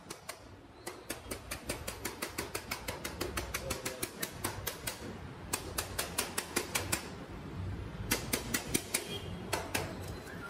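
Hand ratchet clicking in runs of quick clicks, about four a second with short pauses, as a screw on a moped's headlamp shell is backed out.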